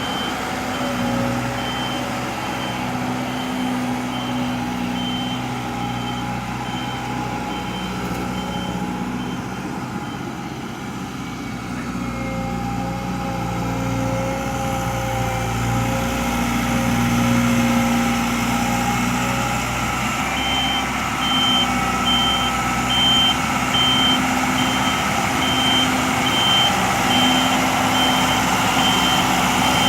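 A heavy vehicle's engine running, its pitch rising and falling, with a backup alarm beeping steadily. The beeping stops for about ten seconds around the middle and starts again.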